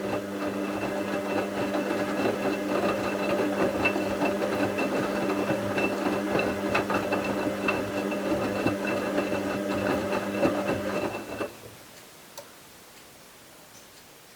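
Bauknecht WA 7778 W washing machine's brushed motor turning the drum during the wash, a steady hum with a rattle. It stops about three-quarters of the way through, and a single click follows about a second later.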